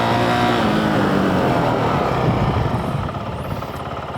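Motorcycle engine and road wind noise picked up by a helmet microphone with the visor open, the engine note falling as the bike slows to about 10 mph. The wind and engine ease off about three seconds in.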